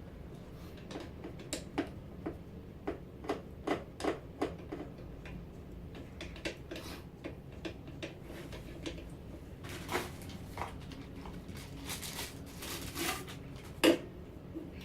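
Objects being handled: a run of light clicks and knocks, about two a second in the first few seconds, then a few short scraping bursts and one louder knock near the end.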